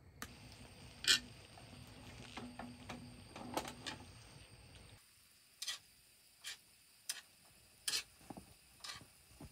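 Soft handling sounds of raw meat slices being laid by hand into a cast-iron pan of cabbage and mushrooms, with a few light clicks. About halfway this gives way to a series of sharp, irregular clicks of cooking utensils at the pan.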